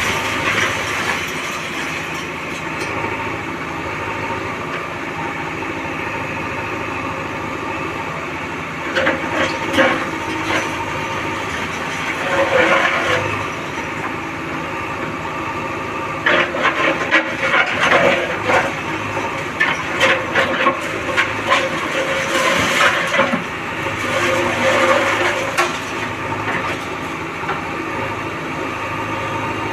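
JCB backhoe loader's diesel engine running steadily, with repeated bursts of clanking and crunching as the machine breaks up an old house, the longest stretch of it in the second half.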